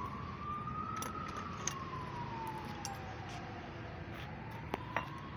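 A siren wailing, its single tone slowly rising and falling, one slow sweep every few seconds, with two sharp clicks near the end.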